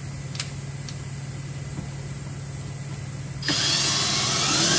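A low steady hum with a light click, then about three and a half seconds in a cordless drill starts up and runs, driving a self-tapping screw through a plywood panel into the Jeep's sheet-metal body.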